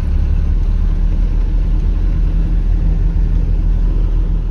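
Mercedes-Benz Vario 818 expedition truck's diesel engine running at a steady cruise on a desert track, a continuous low drone with road and tyre noise.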